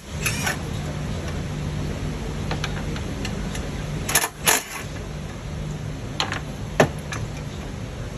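Hand tools clinking and clicking against metal as the EGR valve actuator's mounting bolts are worked loose. There are a few sharp clicks, two close together about four seconds in and another near seven seconds, over a steady low hum.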